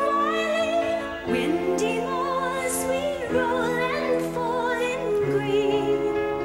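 A woman singing in an operatic style with a wide vibrato over sustained backing chords, which change about every two seconds.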